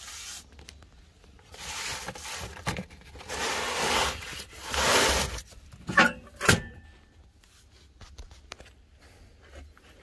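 Old paper freezer cartons rustling and rubbing as they are handled and slid against the refrigerator's freezer compartment, followed by two sharp knocks about half a second apart, the second ringing briefly.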